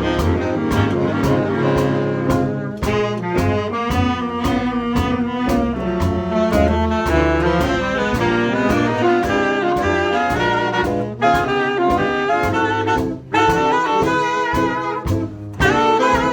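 A big band playing a jazz ballad, with saxophones leading over brass and a walking double bass. The ensemble breaks off briefly a few times in the last few seconds.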